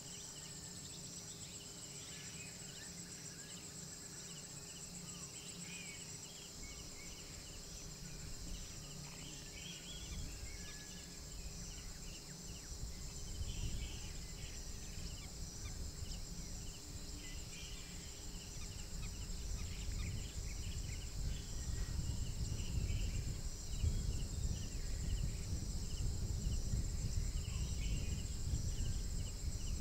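Night insects, crickets among them, chirring steadily in a high, pulsing chorus, with scattered short chirps from other small callers. A low rumble builds from about ten seconds in and grows louder toward the end.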